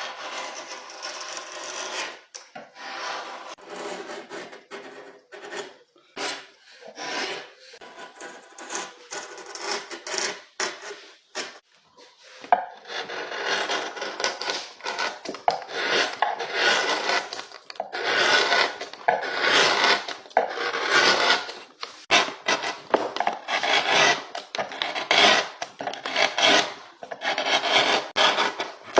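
Hand tool scraping or rasping wood in quick, repeated strokes, which grow louder and fuller from a little before halfway through.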